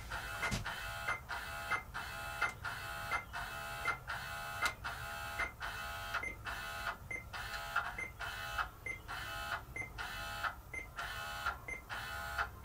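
NordicTrack elliptical's resistance motor driving the magnet actuator up toward the flywheel in short whirring runs, each with a short beep, about every two-thirds of a second, as the resistance is stepped up to its highest level.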